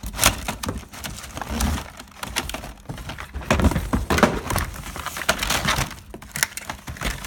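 Irregular clatter, knocks and rustling of assorted stored items being rummaged through and moved around.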